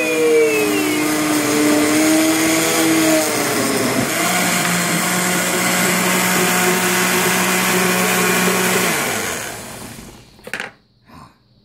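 Countertop blender running, pureeing watermelon chunks; its pitch shifts lower about four seconds in, and it winds down near the end. Then come a couple of short knocks as the jar is taken off the base.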